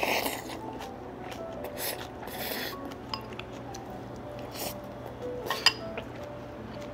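Chopsticks clinking against a ceramic rice bowl while bites of bulgogi rice are taken and eaten, with close mouth and eating noises. A sharp clink about six seconds in is the loudest sound. Soft background music plays underneath.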